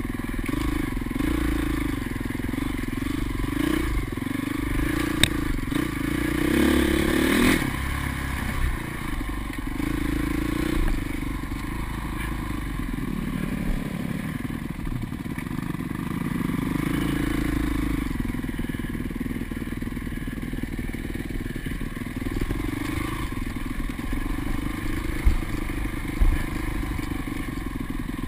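Single-cylinder four-stroke engine of a 2005 Honda CRF450 dirt bike, heard from on the bike, its pitch rising and falling as the throttle is worked along the trail. There is a brief louder surge about seven seconds in and a few sharp knocks from the bike over rough ground.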